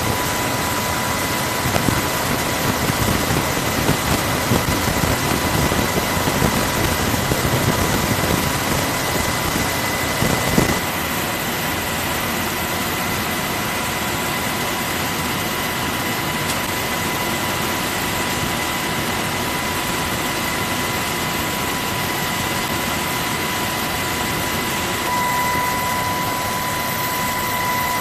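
Cabin noise of an SH-60 Seahawk helicopter in flight with the door open: a steady roar with a steady high whine. The low rumble is louder and uneven for about the first ten seconds, then settles.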